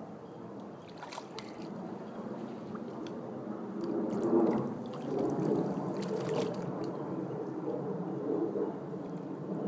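Spawning carp thrashing and splashing in shallow floodwater, the splashing swelling about four seconds in and staying louder after.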